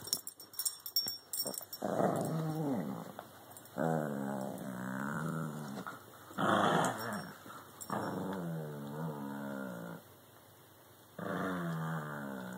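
Two small dogs, a Jack Russell–Chihuahua cross and a Shih Tzu–Chihuahua cross, play-growling as they wrestle mouth to mouth: a run of long growls of about two seconds each, with a quieter pause about ten seconds in. A quick flurry of clicks and scuffling opens it.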